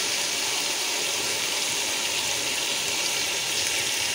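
Spice masala in a cooking pot sizzling and bubbling hard as a steady hiss, with chickpea cooking stock added to the hot oil.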